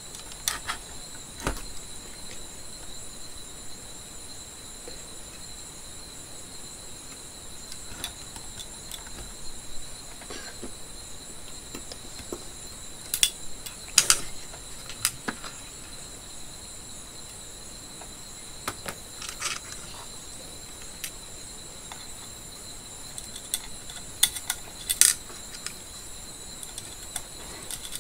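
Scattered clicks and light knocks from hands handling an opened inverter and its wiring, loudest in two clusters about halfway through and near the end, over a steady high-pitched whine.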